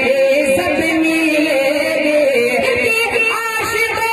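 A man singing a naat into a microphone, in a melismatic style with long held, wavering notes.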